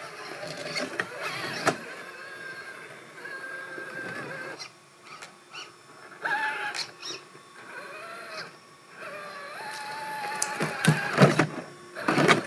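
Axial SCX6 1/6-scale RC crawler's electric motor and geartrain whining in short spurts, the pitch rising and falling with the throttle. Sharp knocks and scrapes of tyres and chassis on rock come with it, loudest near the end.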